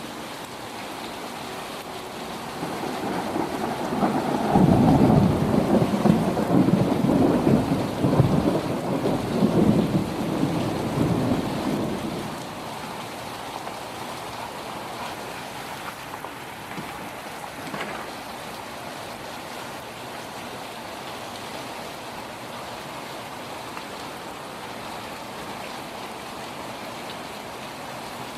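Steady rain with a long roll of thunder that builds a few seconds in, rumbles loudest for about seven seconds and dies away, leaving the rain falling steadily.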